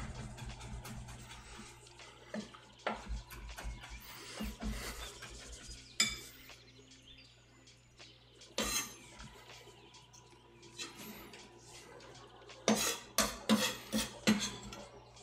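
Kitchen knife chopping herbs on a wooden cutting board and a spoon stirring and scraping a mixture in a glass bowl, with scattered clicks and knocks of utensils. Near the end comes a quick run of five or six sharp knocks.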